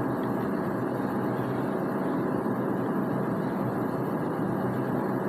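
Steady background noise with a faint low hum and no distinct events.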